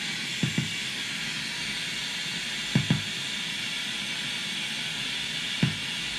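Drolo Molecular Disruptor pedal on its 'Granpa's Vinyl' patch, heard through a guitar amp, putting out a steady hiss with a few low pops, mostly in pairs, imitating the surface noise of a vinyl record.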